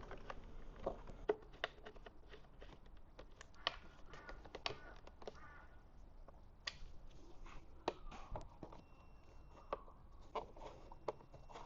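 Scattered light clicks and knocks of small parts and cables being handled and fitted on a motorcycle, over a faint steady background hum from a neighbour's laundry machine.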